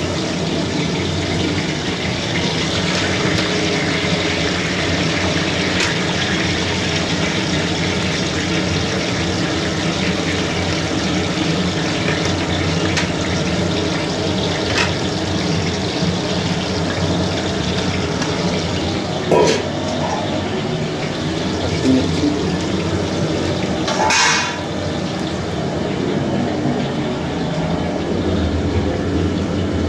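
Sliced onions sizzling in hot oil in an aluminium pot, a steady loud hiss, with a few short knocks against the pot.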